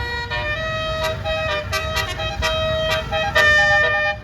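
Bus telolet horn (Basuri multi-tone horn) playing a quick tune of separate notes, several notes a second, over a low rumble; it gets louder about three seconds in.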